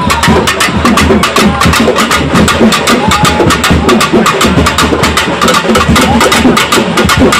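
Several pambai drums, the paired Tamil folk drums, beaten with sticks in a fast, steady rhythm.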